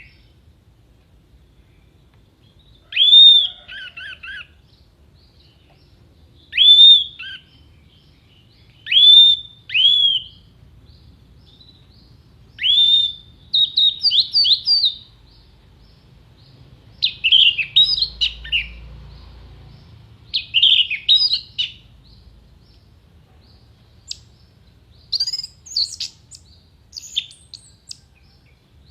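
Orange-headed thrush singing: loud, sharp down-slurred whistles a few seconds apart, then from about halfway quicker runs of short chattering notes, with short pauses between phrases.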